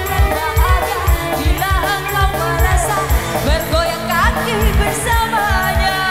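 Live dangdut band music played loud through a stage PA: a woman singing a gliding melody over keyboard and a steady, even drum beat.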